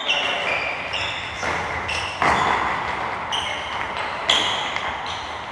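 Footballs being kicked and bouncing in an echoing hall during youth football drills: a run of sudden thuds, with short high squeaks in between.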